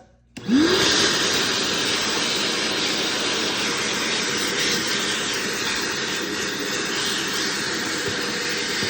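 Bauer 3 HP wet/dry shop vacuum switched on about half a second in: its motor whine sweeps quickly up to speed, then it runs steadily with a loud rush of air through the hose.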